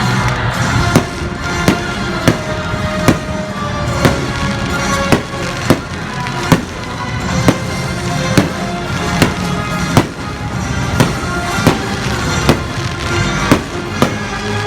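Fireworks bursting, a sharp bang roughly every second, over loud music.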